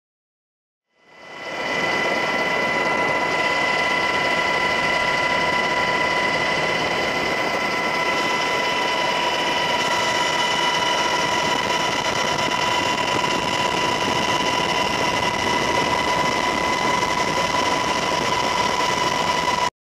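Aircraft engine noise heard from inside the cabin: a steady drone with a constant high whine, fading in about a second in and cutting off abruptly near the end.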